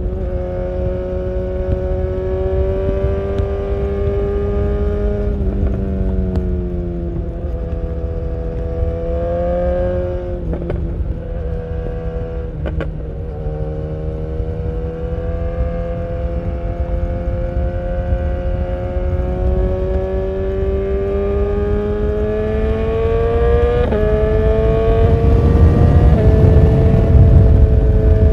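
BMW S1000R's inline-four engine through an Akrapovic full exhaust, heard from on the bike while riding. Its pitch climbs slowly as speed builds, drops back twice when the throttle eases, with two short sharp cracks around the second drop, then climbs again. Wind rush grows louder near the end.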